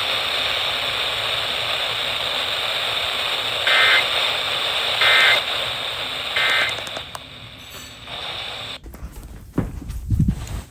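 Radio static hiss broken by three short warbling data bursts about a second apart: the EAS/SAME end-of-message code that closes a weather radio alert. The hiss cuts off suddenly near the end.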